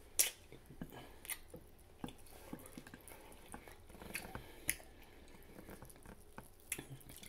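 Close-up chewing of barbecue rib meat, with scattered short wet smacks and clicks; the sharpest comes about a quarter second in.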